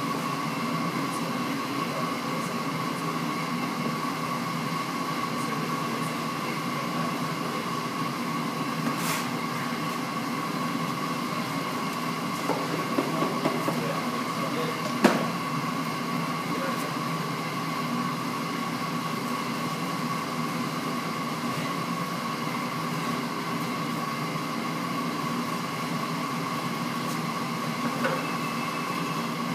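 Steady machinery hum with a constant high whine. A few short clicks or knocks sound over it, the sharpest about halfway through.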